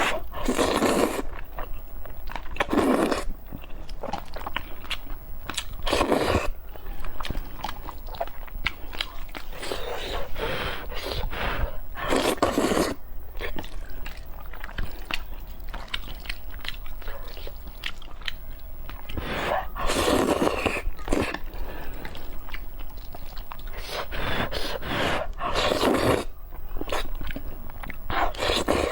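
A person chewing and biting meat, with repeated crunches.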